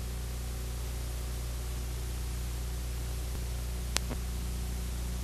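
Steady hiss and low electrical hum from an old videotape transfer, with one sharp click about four seconds in.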